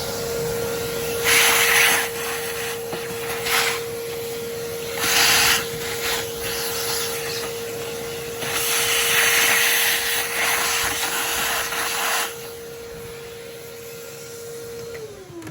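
Vacuum cleaner running with a steady motor whine, sucking dirt out of a lawn mower's air filter box; the rushing suction noise surges louder several times as the nozzle works. Near the end it is switched off and the motor winds down, falling in pitch.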